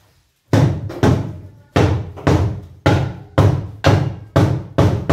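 Loud, deep percussive thuds, nine in a row at about two a second, starting about half a second in.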